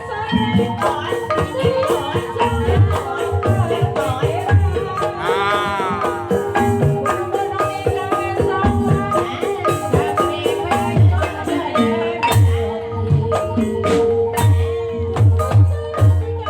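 Banyumasan gamelan music for an ebeg dance: mallet-struck tuned keyed instruments play a busy run of notes over regular low hand-drum strokes. A single rising-and-falling melodic glide sounds about five seconds in.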